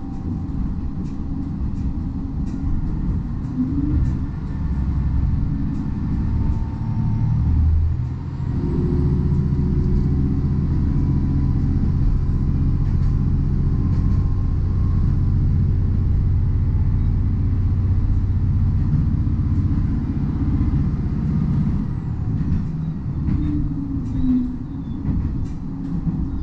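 Diesel railcar running along the line, heard from inside the cabin: a steady low rumble of engine and wheels on rail, with scattered clicks from the track. The engine note holds steadier and louder from about nine seconds in until about twenty seconds in.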